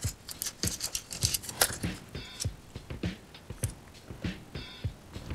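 Plastic zip-top bag crinkling irregularly as it is squeezed to pipe dough, with light taps and rustles against a parchment-lined baking sheet.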